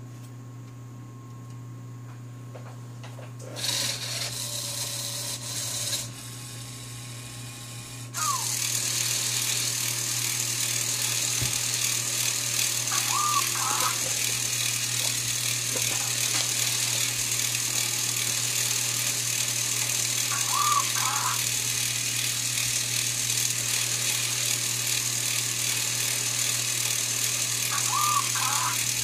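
LEGO Mindstorms EV3 motors and plastic gear trains whirring as the gantry machine drives its axes. A short motor run comes about four seconds in, then from about eight seconds a steady high whir, with a small squeak every seven or eight seconds.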